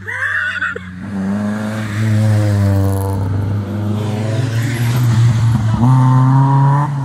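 Historic rally cars at full throttle on a gravel-free tarmac special stage, the engine revs climbing and dropping with gear changes as the cars pass close by one after another.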